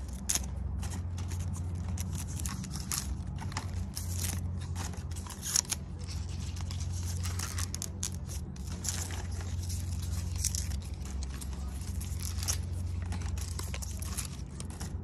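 Dry leaves being pulled and torn off the base of a pineapple crown by hand: short irregular crackling and tearing snaps, over a steady low hum.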